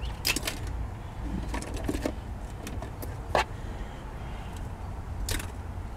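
Scattered clicks, knocks and rustles of belongings being handled and pulled out of a truck's cab, the sharpest knocks about three and a half and five seconds in, over a low steady rumble.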